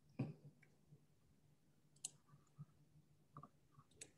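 Near silence: four faint clicks spread over a few seconds, the first the loudest, over a low steady hum.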